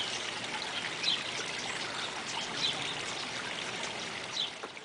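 Flowing stream ambience, a steady rush of water with a few faint bird chirps, cutting off suddenly near the end.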